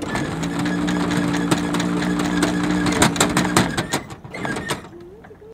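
Electric anchor windlass running: a steady motor hum with the chain clattering over it in quick clicks. It starts abruptly and cuts off after about three and a half seconds.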